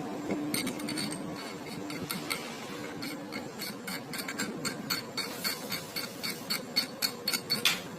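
Irregular light metallic clicks and clinks, like metal parts and tools being handled during work on a Honda scooter's CVT. They come more often and louder in the last few seconds.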